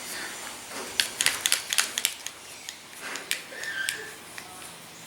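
A quick run of sharp clicks and rattles lasting about a second, starting about a second in, with a few lighter clicks and a short squeak after, as the bicycle's disc brake is locked down to center the caliper.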